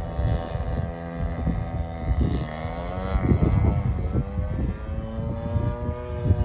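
Radio-controlled model airplane's motor and propeller droning in flight overhead. About halfway through, its pitch dips and climbs back. Wind rumbles on the microphone throughout.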